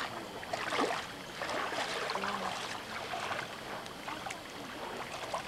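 Small lake waves lapping and splashing at a sandy shore, with uneven little splashes.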